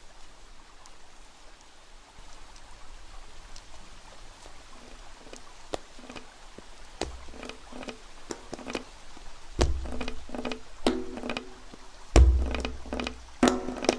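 Knocks and thuds in an uneven rhythm, sparse and faint at first, then louder and closer together, with heavy deep thuds about ten and twelve seconds in.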